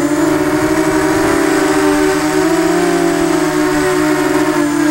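Eachine Falcon 250 quadcopter's brushless motors and propellers whining in flight, picked up by its onboard camera's microphone, the pitch wavering and beating as the throttle shifts. A steady hiss of rushing air runs beneath the whine.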